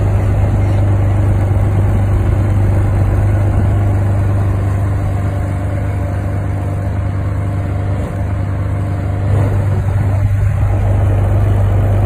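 Ferrari 599 GTZ Nibbio Zagato's V12 idling steadily, a low even hum.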